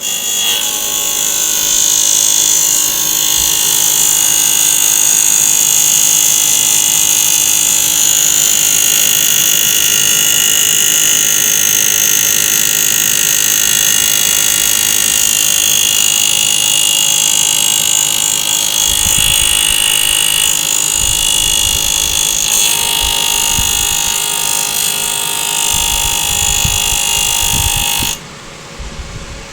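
Asus R9 280X graphics card fans spinning at 100% speed: a loud steady whir with a high whine and a pulsing buzz, which the owner takes for the fan blades slapping against the plastic cover. It cuts off suddenly near the end.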